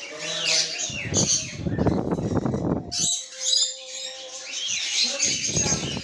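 Birds chirping and chattering in quick, high calls throughout, with two loud bursts of noise of about two seconds each, one about a second in and one near the end.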